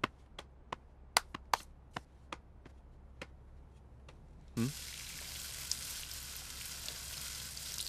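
Footsteps on a hard floor, sharp taps about one or two a second, then about four and a half seconds in a steady rush of water starts and keeps going.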